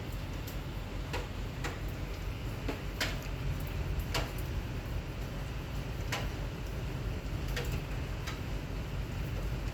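Steady rain with a low rumbling hiss, and single drops tapping sharply on a nearby surface at irregular intervals, about every second or two.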